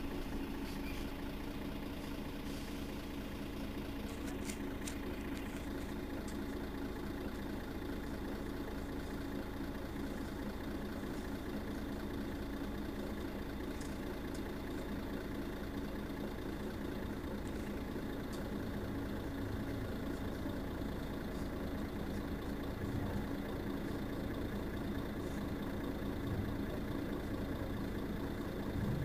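Mercedes-Benz Citaro facelift city bus's diesel engine idling steadily, heard from behind the bus while it stands still. A higher steady hum joins about six seconds in.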